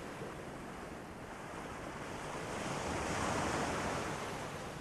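Ocean waves washing onto a shore, one surge building to a peak about three seconds in and then easing off.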